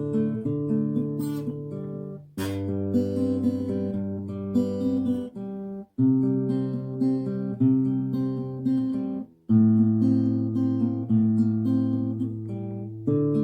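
Acoustic guitar strummed in held chords, with a few short breaks between them, typical of someone practising chord changes.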